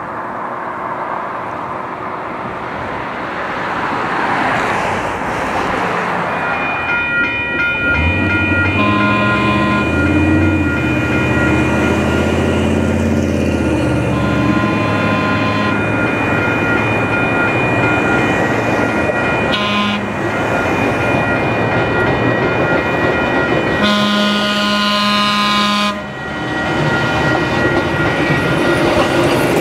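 Grade-crossing bells ringing steadily as the San Pedro Red Car streetcar No. 500 approaches and sounds its horn four times: long, long, short, long, the standard crossing signal, with the last blast the loudest. Near the end its wheels roll over the crossing.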